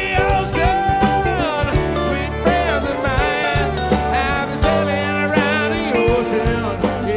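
Background music: a song with a singing voice, guitar, bass and a steady drum beat.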